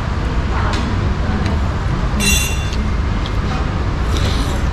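Steady low traffic rumble, with one short ringing clink of a metal spoon against the dish about two seconds in.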